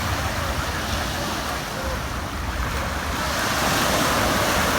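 Ocean surf washing on the beach, with wind buffeting the microphone; the surf swells a little louder about three seconds in.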